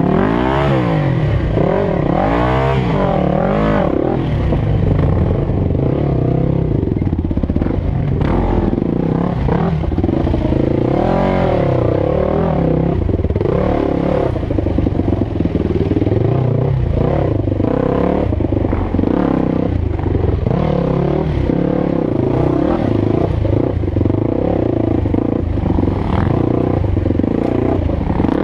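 Dirt bike engine running hard, its revs rising and falling again and again as the throttle is worked, heard from the rider's helmet.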